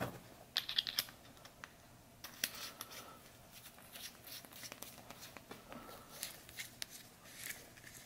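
Hands working a small flashlight into a fabric headband holder: a run of light plastic clicks and scratchy rubbing, with a few sharper clicks about a second in.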